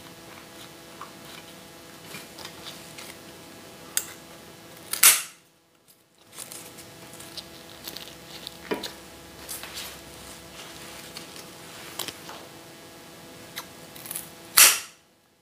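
Two sharp snips of florist's snips cutting through dahlia stems, about ten seconds apart, the second near the end. Between them come soft rustles and taps as stems are handled and pushed into a moss base.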